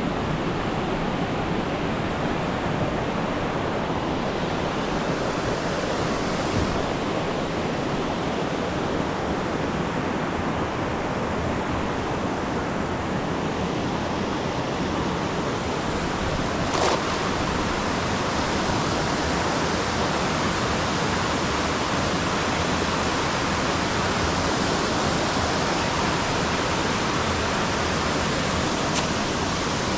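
Steady rushing of flowing stream water. A single short click sounds a little past halfway through, and a fainter one near the end.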